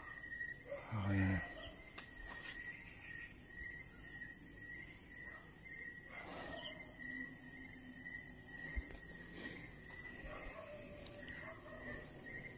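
Steady chorus of night insects such as crickets, a continuous high-pitched trilling. A brief, louder low sound comes about a second in.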